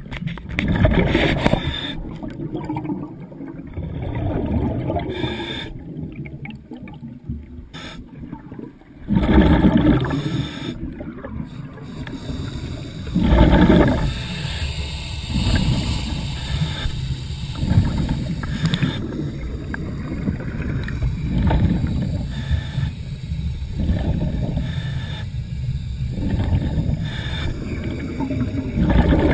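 Scuba diver's breathing heard underwater through the camera housing: bursts of rushing exhaust bubbles every few seconds, over a low rumble.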